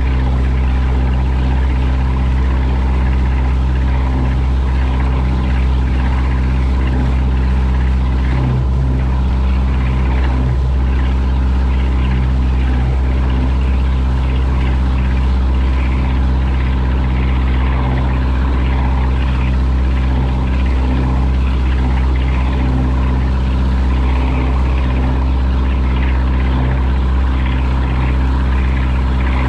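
Boat engine running at a steady speed while under way, with the rushing hiss of water churned up in the wake.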